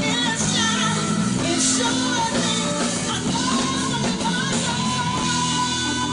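Live band music with singing, recorded on a phone in the club, with a long held note through the second half.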